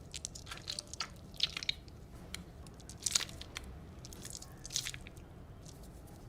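Kinetic sand being handled: soft, irregular crunching and squishing, with a few louder crunches about a second and a half, three seconds and nearly five seconds in, over a faint low hum.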